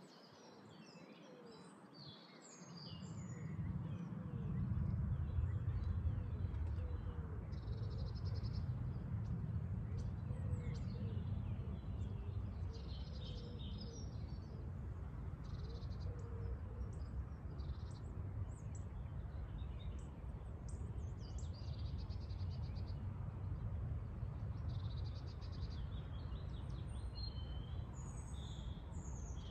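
Several birds chirping and singing in short, scattered phrases, over a low steady rumble that sets in about three seconds in and is the loudest part.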